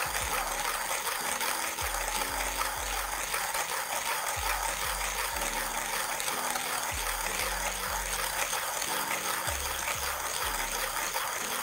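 1Zpresso JX-Pro hand grinder's 48 mm conical stainless steel burrs crunching espresso beans to a fine grind as the crank is turned steadily, a continuous rasping grind. Background music with a bass line plays underneath.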